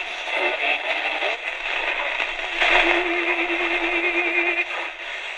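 Tecsun R-208 portable radio's small speaker playing AM broadcast audio, thin and without bass. A steady tone is held for about two seconds midway.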